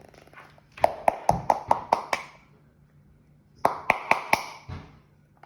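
Quick runs of sharp taps on a container, about seven in a row and then four more a second and a half later, each with a short ring.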